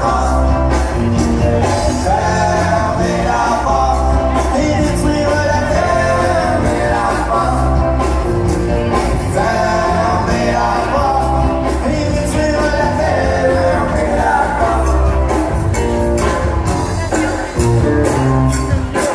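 Live country-and-western dance music with singing over a steady beat and strong bass.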